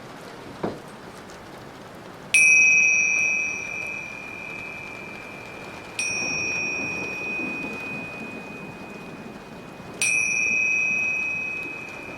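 A high-pitched metal chime struck three times, about four seconds apart, each strike ringing out and fading slowly, over a steady patter of rain.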